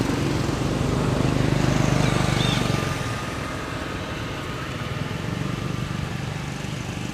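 A motor engine running nearby, fading away about three seconds in, leaving a lower steady background.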